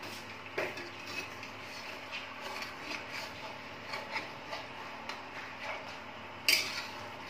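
Long metal spatula scraping and knocking against a metal kadhai as chicken pieces are turned while they fry, in a run of small irregular scrapes. A sharper clank comes about six and a half seconds in.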